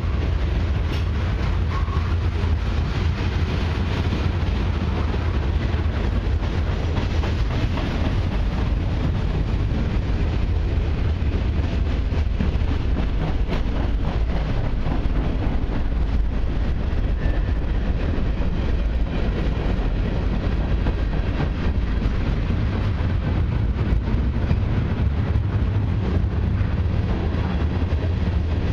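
Freight train's covered hopper cars rolling past: a steady deep rumble of steel wheels on the rails, with faint scattered clicks.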